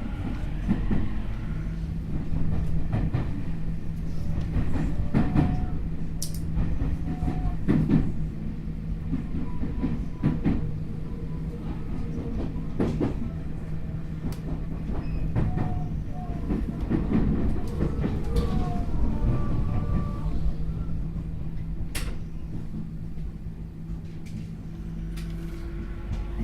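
Tokyu 5050 series electric commuter train heard from inside the car at speed: a steady rumble of wheels on rail with a clack every few seconds over rail joints. A faint whine from its Hitachi IGBT inverter motor drive rises near the end.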